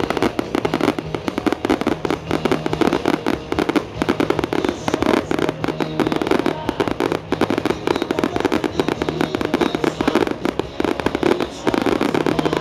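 Fireworks barrage: a dense, continuous rattle of crackling and popping from many crackle stars and comets bursting at once, with music playing underneath.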